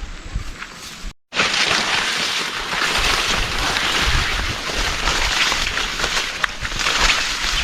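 Heavy rain falling, a dense steady hiss that sets in after a brief cut about a second in, with low rumble beneath.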